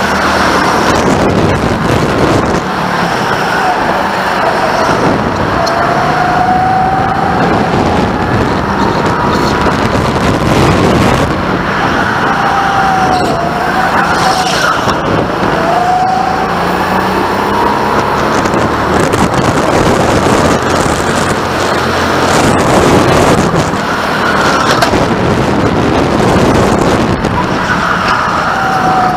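Go-kart running at speed, heard from the driver's seat, its pitch rising and falling through the corners, with several short high squeals along the way.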